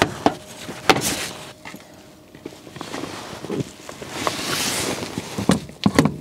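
Plastic wheel-arch liner being worked into a car's front wheel arch: scattered sharp knocks and clicks, a rustling scrape in the middle, and a quick run of knocks in the last second.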